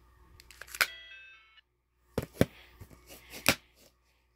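Audiovox CDM-8600 flip phone: small button clicks, then a short electronic beep from its speaker lasting under a second, about a second in. A few sharp clicks and knocks follow in the second half as the flip is snapped shut and the phone is set down on the table.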